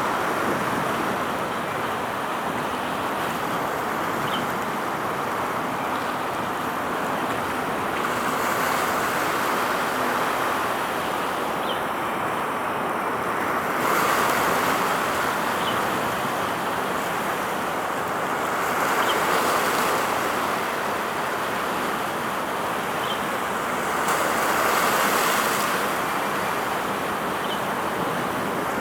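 Steady outdoor rushing noise of wind and water, swelling and easing every five seconds or so, with faint short high peeps now and then.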